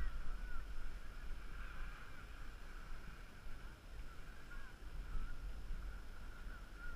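Low wind rumble on the camera microphone, with faint wavering high tones over it.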